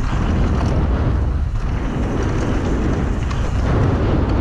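Mountain bike riding down a bike-park trail: steady wind rumble on the camera microphone mixed with tyre noise on the dirt, with a few small knocks and rattles from the bike.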